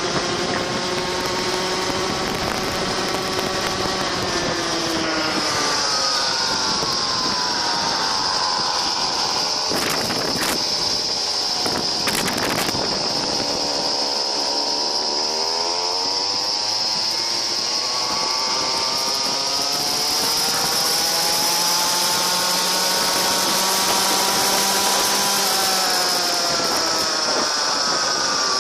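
42cc two-stroke chainsaw engine driving a homemade go-kart, running hard with its pitch falling and rising as the throttle is worked; it drops low about halfway through and revs back up. Two sharp knocks about ten and twelve seconds in, and a steady high whine runs along with the engine.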